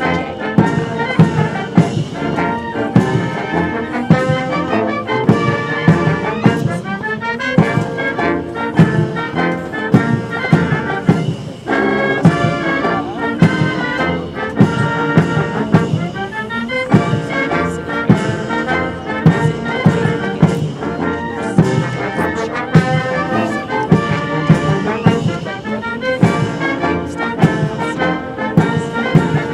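Military brass band playing a march, brass instruments over a steady beat.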